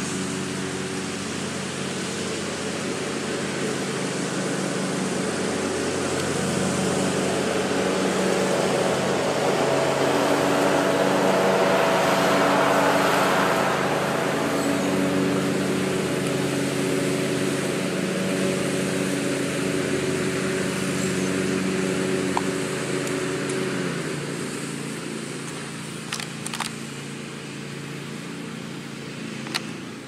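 Sentry 14V-B outdoor warning siren sounding a steady tone during its test: a chord of steady pitches that swells to its loudest about twelve seconds in and then slowly fades. A few faint clicks come near the end.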